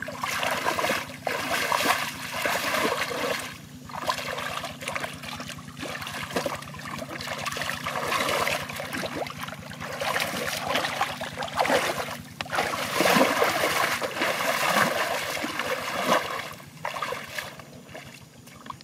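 Hands splashing and sloshing through shallow muddy water, in bursts with short pauses.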